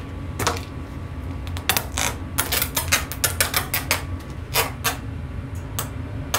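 Irregular sharp clicks and cracks of material being chipped away, a quick run of them in the middle, over a steady low hum.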